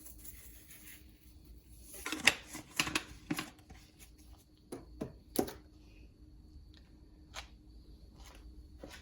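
Seasoning containers being handled over a bowl of raw chicken: a cluster of small clicks and rattles about two to three and a half seconds in, then scattered single clicks.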